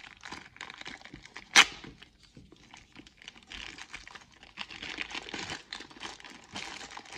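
Clear plastic packaging bags crinkling and rustling as they are handled in gloved hands, with one sharp, loud snap about a second and a half in.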